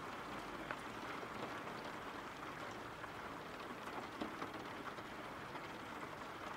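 Faint, steady rain falling: an even hiss with scattered drop ticks.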